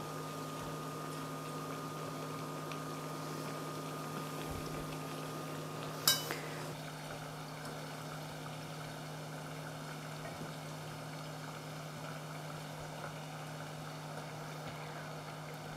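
Sunflower oil sizzling and bubbling steadily around pumpkin-and-starch fritters frying in a pan, over a steady low hum. One short, sharp clack comes about six seconds in.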